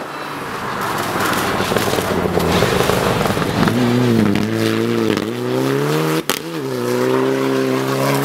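Rally car at full speed on a snowy gravel stage, approaching with rising tyre and engine noise, then passing and pulling away with the engine revving hard. Its pitch dips briefly twice at gear changes, and there is a sharp bang about six seconds in.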